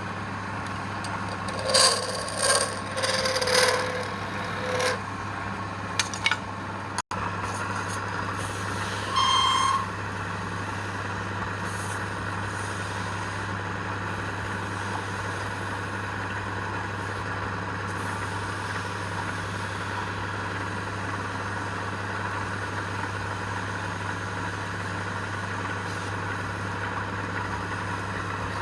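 Wood lathe motor running with a steady hum. In the first five seconds there are a few short, louder scrapes, like a turning tool meeting the spinning wood.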